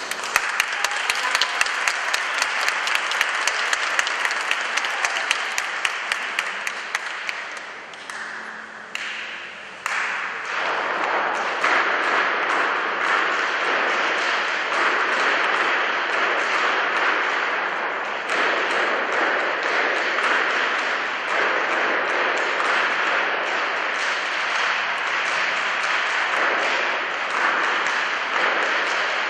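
Audience applauding. For the first seven seconds or so, a run of sharp, evenly spaced clicks sounds over the clapping. After a brief lull around eight seconds, the applause comes back strongly and goes on steadily.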